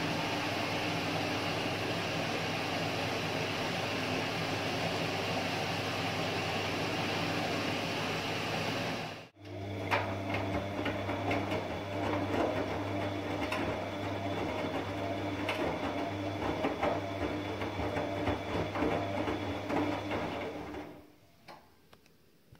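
Bosch WAS20761TR front-loading washing machine running a wash, its drum turning with a steady motor hum. The sound breaks off abruptly about nine seconds in. It resumes as the main wash, with the wet laundry tumbling and sloshing and a busier hum full of small clicks and splashes. It fades away a second or two before the end as the drum stops.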